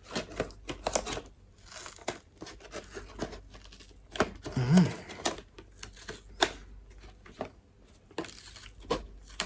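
Hard plastic clamshell packaging being cut open and pulled apart: a run of irregular sharp snips, clicks and crackling plastic.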